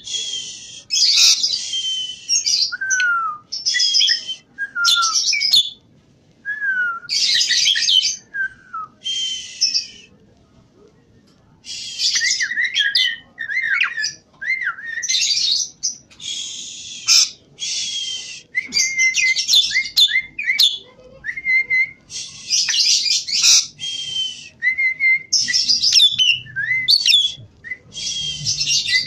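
Javan pied starling (jalak suren) in full song in a cage. It sings bursts of noisy chattering phrases mixed with short falling whistles, with a pause of about two seconds near the middle.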